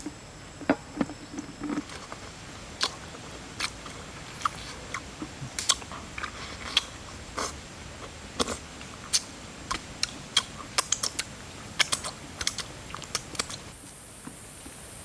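A run of irregular sharp crunches and snaps, about one or two a second, like crisp material being bitten or broken. A steady high hiss comes in near the end.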